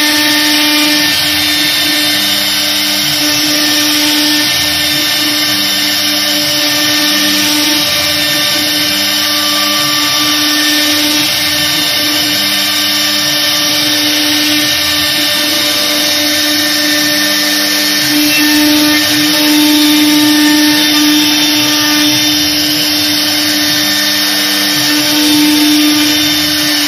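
CNC router carving MDF: the air-cooled spindle runs steadily with a whine of several held tones over a cutting hiss. Beneath it, lower humming tones change every second or so as the axes move the cutter.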